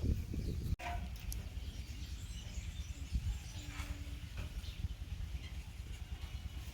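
Outdoor rural ambience: wind rumbling on the microphone, with faint bird chirps. The sound drops out for an instant less than a second in.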